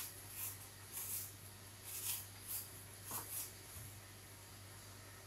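Faint, short, crisp scrapes of a small blade cutting the peel from an apple, about seven strokes in the first three and a half seconds, then quieter.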